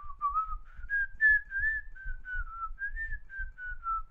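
A person whistling a slow tune, a string of held and sliding notes, with soft low thumps underneath.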